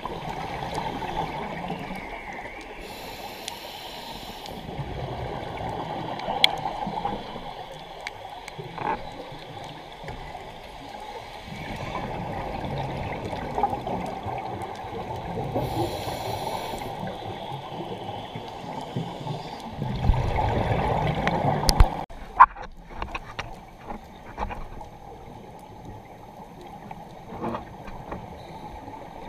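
Scuba breathing heard underwater: two short hissing inhalations through a regulator, about 3 and 16 seconds in, and gurgling exhaled bubbles, loudest as a low rumble around 20 seconds in. A few sharp knocks are also heard.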